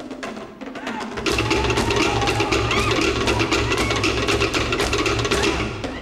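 Cook Islands drum ensemble playing a fast, driving rhythm: rapid strokes on wooden slit-log drums (pate) over a steady beat on skin drums (pa'u). It is quieter for the first second, then the full ensemble comes in and plays on until just before the end.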